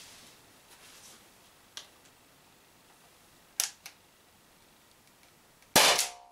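Umarex HDP50 .50-calibre CO2 pistol firing one 12.5 mm steel ball: a single loud, sharp shot near the end, followed by a brief metallic ring as the ball hits and punches through the tin can. Before it come a few lighter clicks as the pistol is handled.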